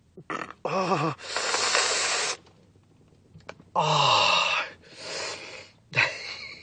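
A man groaning in pain and letting out long hissing breaths: two groans, the second falling in pitch, each running into a hiss. A short groan comes near the end.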